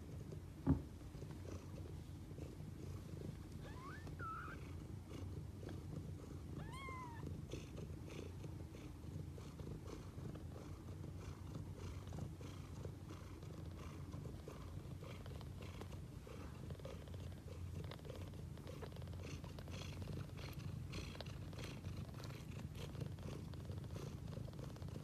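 Mother cat purring steadily and softly, a continuous low rumble, with newborn kittens against her. A sharp tap comes a little under a second in, and two faint high squeaks come a few seconds later.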